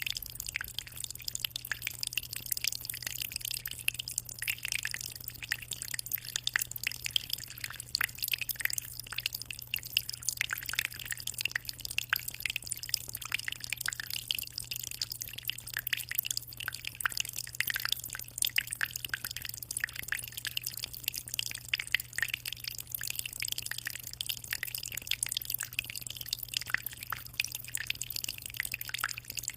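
Aquarium water trickling and splashing steadily at the surface of a 60-litre tank, a dense, uneven patter of small drips and splashes over a low steady hum.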